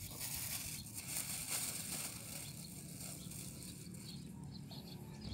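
Thin plastic bag crinkling and rustling in the hands, loudest in the first couple of seconds and then fading to a few faint rustles, over a steady low outdoor rumble.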